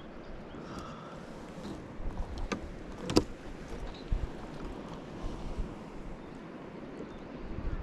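Water lapping around a moored fishing boat, with low wind rumble on the microphone. A sharp knock about three seconds in, just after a fainter one.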